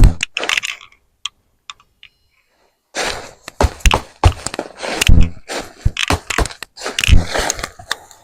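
Hands digging through dumped potting soil and pulling out sweet potatoes, with repeated knocks, thunks and scraping. There is a lull of about two seconds near the start.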